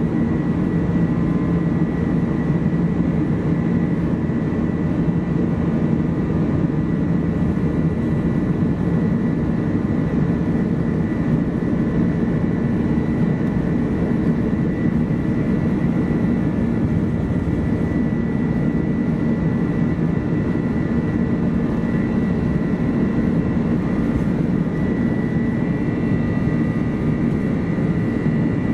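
Airbus A330-200 with Pratt & Whitney PW4168A engines heard from inside the passenger cabin: steady engine and airflow rumble with a thin, steady high whine on top that grows a little stronger near the end.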